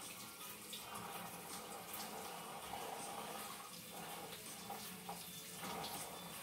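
Kitchen tap running a steady stream of water over lentils in a small strainer at the sink as they are rinsed.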